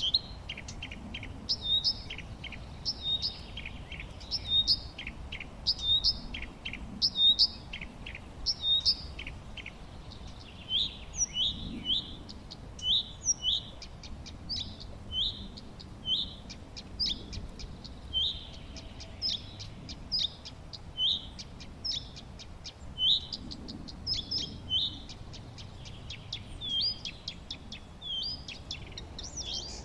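Songbirds singing: short, curved chirps repeated every second or so, with fainter rapid ticking notes in between, over a faint low background rumble.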